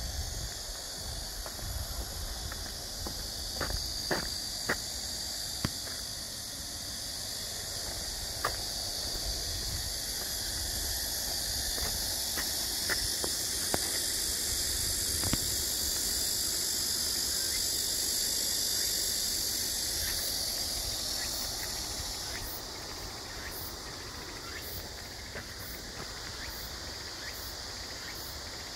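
Summer insect chorus, a dense steady high buzz of cicadas, broken by a few scattered sharp clicks. About two-thirds through, the buzz drops a little and a faint high pulse starts repeating, a little faster than once a second.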